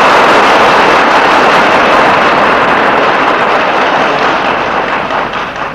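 Large audience applauding, dense and steady, dying away near the end.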